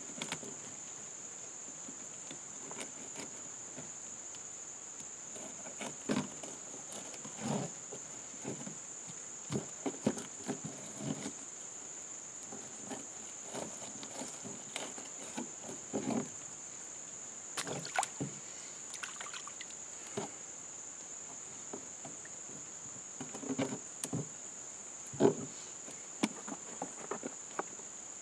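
Steady high-pitched drone of insects, with irregular knocks and scrapes of a knife filleting fish on a canoe hull used as a cutting board; one knock about 25 seconds in is the loudest.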